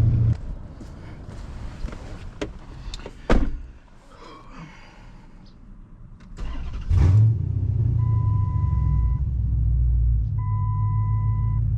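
Chrysler 300C's 5.7-litre HEMI V8 cranks and fires up about seven seconds in, flaring briefly before settling into a steady idle. A few sharp clicks come before it, and two long, steady electronic beeps sound over the idle.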